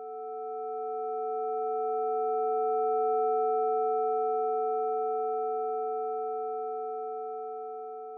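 Synthesized chord of several steady sine tones in Sonic Pi, two middle tones loudest, swelling in and then slowly fading away. It is a spectral-profile sonification of the red wines' quality histogram.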